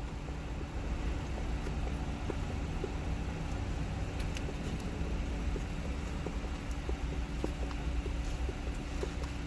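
Steady low hum inside a car cabin, with one faint steady tone, and scattered small faint clicks of chewing.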